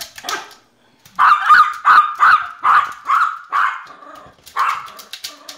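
Small Yorkie-Poo (Yorkshire terrier–poodle mix) barking at a kitchen blender: a rapid run of short, high barks, about three a second, starting about a second in, then two more barks near the end.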